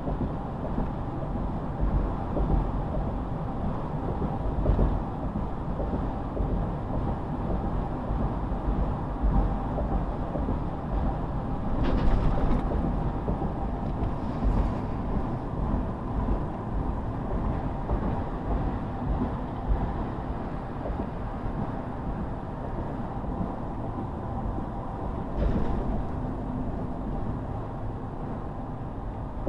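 Car driving at road speed, heard from inside the cabin: a steady low rumble of tyres and engine. There are a few brief louder swells, about twelve seconds in and again near the end.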